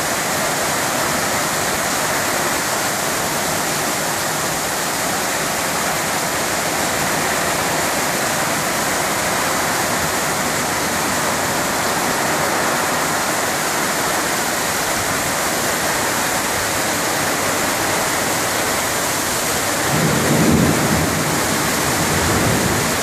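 Heavy rain pouring steadily in a thunderstorm, with a low rumble swelling about twenty seconds in and again near the end.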